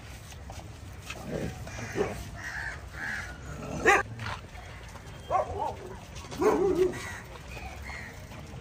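Street dogs barking and yelping: several short calls with gaps between them, the loudest about four seconds in.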